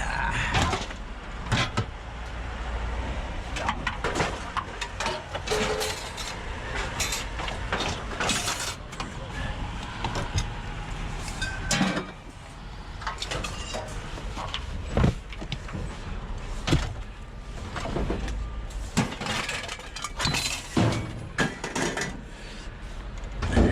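Scrap metal being pulled loose and handled by hand: irregular clanks, knocks and scraping, over a steady low rumble.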